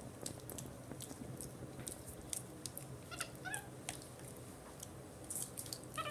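Capuchin monkey giving a few short, high, falling chirps about three seconds in and again near the end, over faint scattered clicks.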